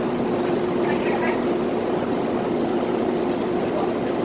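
Steady machine hum holding one constant pitch, with faint voices behind it.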